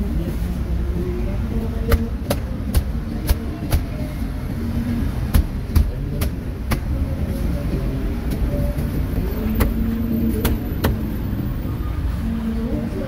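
Meat cleaver chopping through a roast duck on a thick wooden chopping block: about a dozen sharp knocks, several in quick succession two to four seconds in, again around five to seven seconds and near ten to eleven seconds. Steady street traffic rumble runs underneath.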